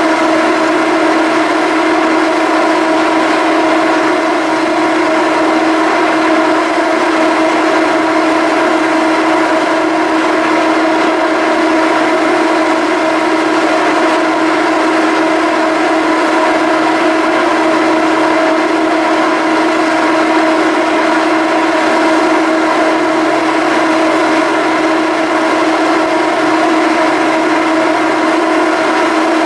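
Steady, loud droning hum of a Salish-class ferry's machinery running at idle, one strong held tone with its overtones, unchanging throughout.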